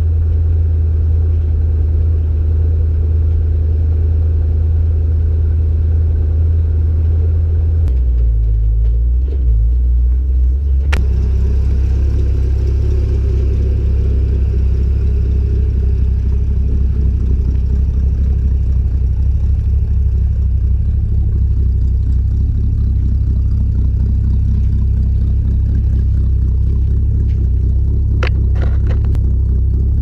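1981 Jeep CJ7's engine running with a steady low rumble. Its note changes about eight seconds in, and a single sharp click sounds about three seconds later.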